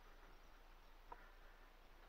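Near silence: room tone, with one faint tick about a second in.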